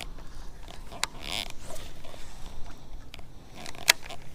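Close handling noises from a baitcasting reel and rod. A sharp click comes about a second in, then a short scratchy rustle, and a louder sharp click near the end.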